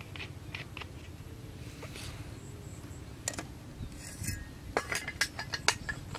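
A scattering of light clicks and clinks as a plastic bottle and hand tools are handled, with a quick run of sharp clicks in the last second or so.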